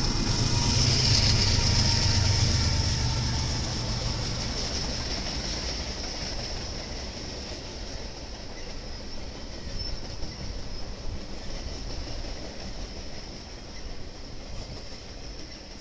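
BNSF diesel locomotive passing with a low engine rumble that fades over the first four or five seconds. Loaded flatcars follow, rolling steadily over the rails with a high, steady wheel-on-rail hiss.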